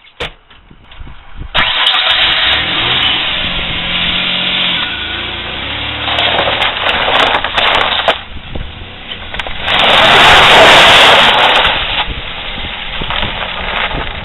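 An SUV's engine starting about a second and a half in, then running as the SUV pulls away, preceded by a sharp click. The loudest part is a rushing noise about ten seconds in.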